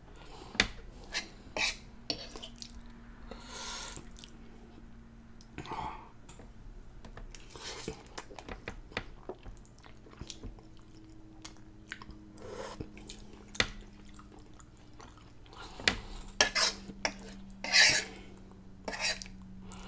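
Metal fork clinking and scraping on the surface of an electric griddle as noodles and sloppy joe meat are gathered up, in sharp irregular clicks, with chewing in between. The clatter is busiest near the end.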